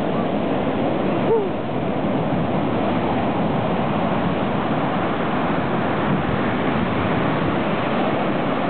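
Heavy surf breaking offshore and white water washing in over the shallows: a steady, dense rush of ocean waves.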